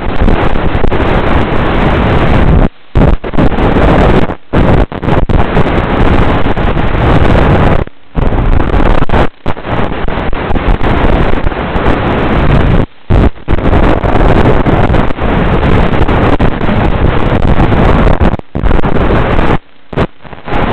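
Loud steady rushing hiss on the audio of the FPV flying wing's video feed, the wind rush or radio static of high-speed flight, with no clear motor note. It cuts out suddenly for a split second about eight times.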